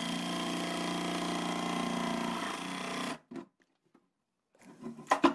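Small cordless jigsaw running steadily as it cuts a rectangular opening in a plastic box lid, a blade speed the makers found hot enough to melt the plastic back together behind the cut; it stops about three seconds in. About five seconds in come a few sharp knocks and clatters, louder than the saw, as the plastic box is handled.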